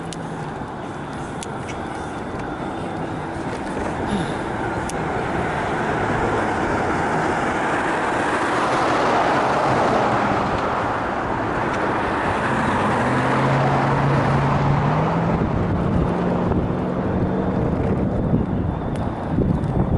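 Road traffic noise of cars passing on the road alongside, mixed with wind on the microphone of a bicycle-mounted camera; the noise swells through the middle, and a vehicle's engine hum rises in pitch about two-thirds of the way through.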